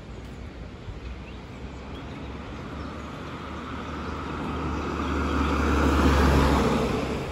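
Audi hatchback approaching and driving past: tyre and engine noise swells steadily to a peak about six seconds in, then fades.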